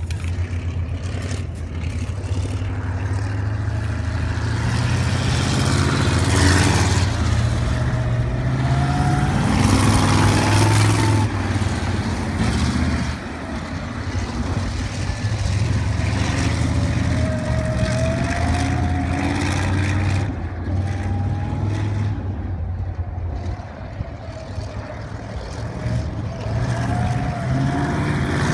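Sprint car V8 engines running laps on a dirt oval. The engine note rises and falls over and over as the cars accelerate and back off, swelling as a car passes close and dropping away as it goes round the far side.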